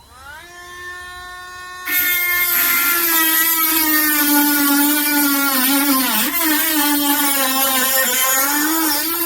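Cordless mini rotary tool spinning up to a steady high whine, then, about two seconds in, grinding against a workpiece with a loud gritty hiss, its motor pitch sagging and wavering under the load until it is lifted off near the end.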